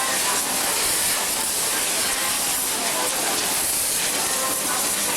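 A steady, loud hiss of noise with no clear beginning or end, with faint voices or music buried underneath.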